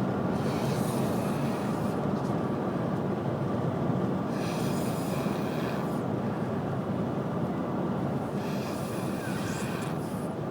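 A sleeping girl snoring, three long snores about four seconds apart, over the steady rumble of a moving vehicle.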